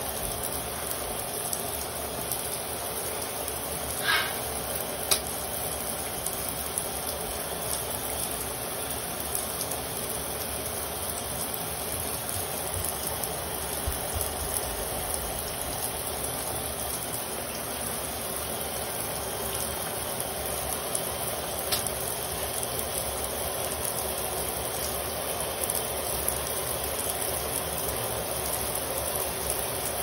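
Shower spray running steadily. A short sharp sound breaks through about four seconds in, followed by brief clicks a second later and again about two-thirds of the way through.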